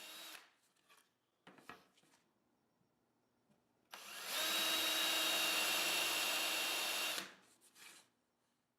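Power drill boring pilot holes into a wooden spacer: a run dies away at the start, a few light knocks follow, then the drill runs steadily for about three seconds with a steady whine and stops.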